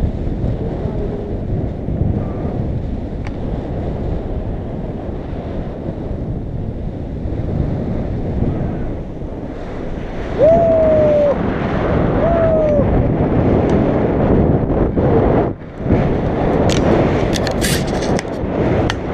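Airflow buffeting the microphone of a camera on a paraglider in flight: a steady rush of wind noise. It grows louder about ten seconds in as the glider banks into a steep turn and picks up speed. Two short whistle-like tones come a couple of seconds apart near the middle, and a few sharp clicks come near the end.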